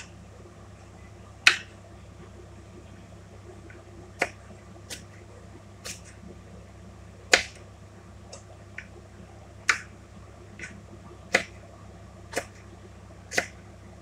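Kitchen knife slicing green hot peppers on a plastic cutting board: about a dozen sharp, irregular taps of the blade striking the board, the loudest about a second and a half in and again about seven seconds in.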